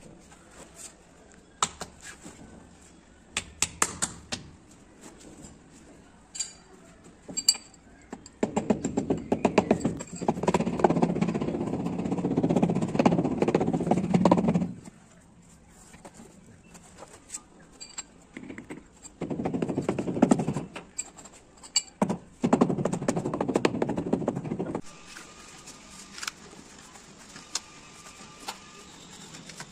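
A steel trowel scraping and rasping along wet cement mortar at the edge of a granite slab, in long strokes, with scattered sharp taps and clicks of metal on stone before them.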